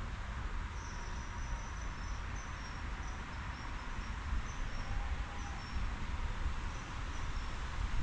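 Outdoor park ambience: a steady hiss with a low rumble underneath, and a run of short, high, thin chirps from about a second in until near the end.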